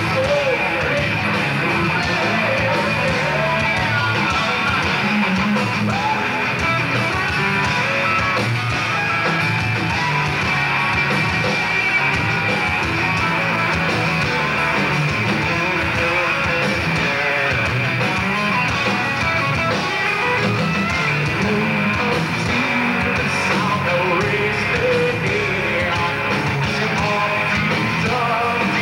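Rock band playing live: electric guitars, bass guitar and drums.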